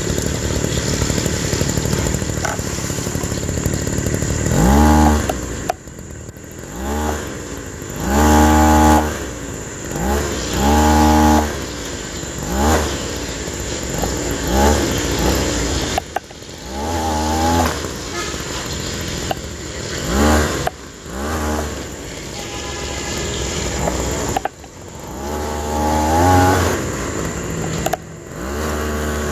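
Motor of a homemade RC model dump truck revving up again and again in short bursts, each a rising whine over a steady mechanical running noise.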